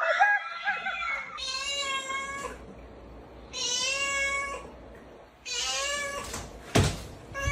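Domestic cat meowing repeatedly: long, even meows about two seconds apart, with a sharp thump near the end.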